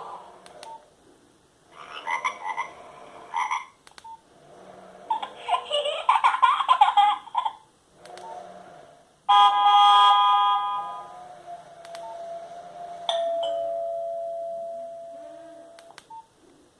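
Nokia 1110i mobile phone playing short electronic ringtone and alert-tone snippets one after another, with short pauses and clicks between them. About nine seconds in comes a buzzy tone, then a long single tone that slowly fades.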